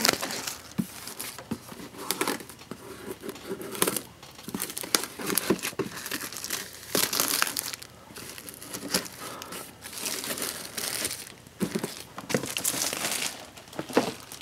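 Plastic shrink-wrap being peeled and torn off a sealed retail box, crinkling and crackling in irregular bursts.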